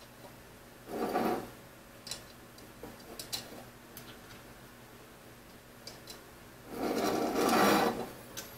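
Steel T-slot nuts sliding and rattling along the slot of an aluminium extrusion: briefly about a second in and longer near the end. A few light clicks of small metal parts come in between.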